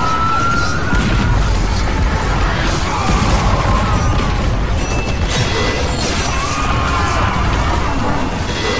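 Battle sound effects laid over music: a dense, continuous rumble of a cavalry charge, with crashes and men's shouts rising and falling.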